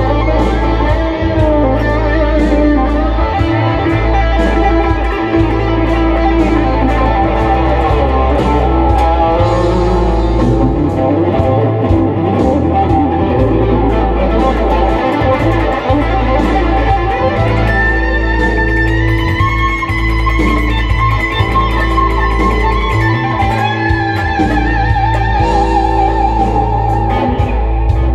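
Gibson Les Paul electric guitar through a Mesa/Boogie amp, playing an improvised lead over a backing track of drums and bass. Long held notes ring out in the second half.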